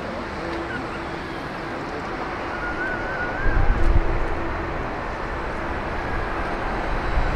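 Airbus A380 on final approach, the noise of its four Rolls-Royce Trent 900 engines slowly growing louder as it nears. Wind buffets the microphone with a low rumble about three and a half seconds in.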